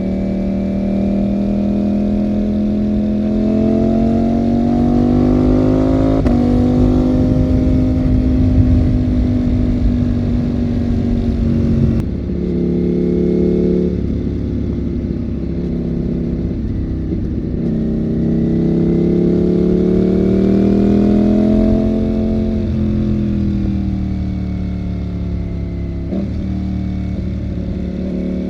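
Ducati Panigale V4 motorcycle engine under way. Its pitch climbs and falls with the throttle, with a few abrupt breaks in pitch, about six, twelve and twenty-six seconds in.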